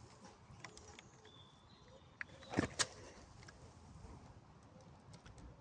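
Plastic Lego pieces clicking and knocking as a Lego vehicle is handled and reconfigured, with a sharp double click a little past the middle.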